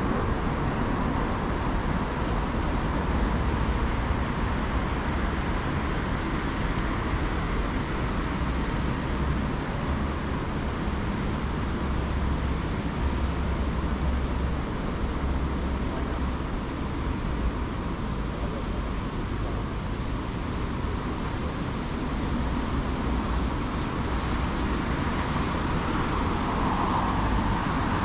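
Steady road traffic noise, the mixed rumble of passing cars that swells and fades.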